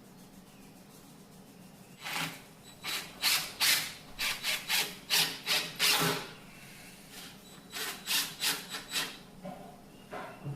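Hand tool rasping back and forth on cherry wood, about two to three strokes a second, in two runs: about ten strokes starting two seconds in, then a shorter run of about six near the end.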